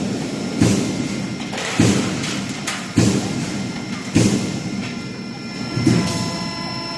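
Press on a noise-barrier roll forming machine thumping in a steady cycle, about one hit every 1.2 seconds, each blow ringing briefly, over the continuous hum of the running line.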